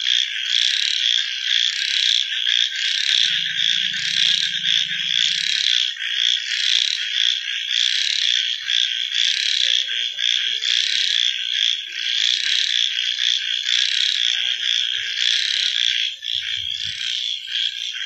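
A dense chorus of many frogs calling together, a continuous high-pitched trilling din.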